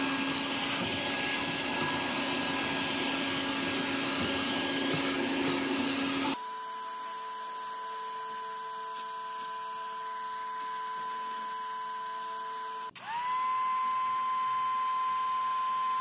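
A shop vacuum sucking dirt and leaves out of the golf cart body for about six seconds. Then a pressure washer runs with a steady whine, cuts out briefly around thirteen seconds in and spins back up.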